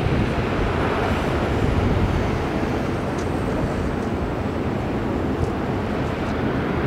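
Jet engines of a Boeing 737 Classic, its CFM56-3 turbofans making a steady, broad rushing rumble.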